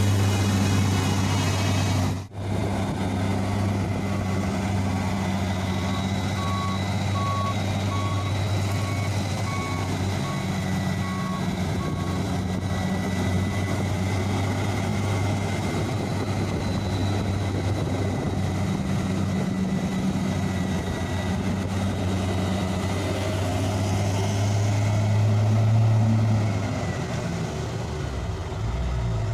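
Heavy truck's diesel engine running steadily, swelling briefly near the end. A reversing beeper sounds about once a second from roughly six to twelve seconds in. The sound cuts out for a moment about two seconds in.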